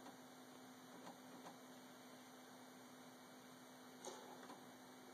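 Near silence: a faint steady electrical hum, with one soft click about four seconds in.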